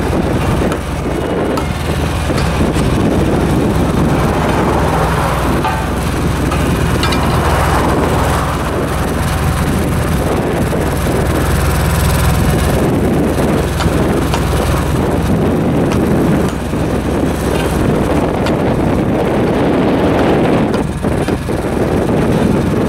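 Ride-on drum roller's engine running steadily as the roller drives back and forth, compacting fresh asphalt.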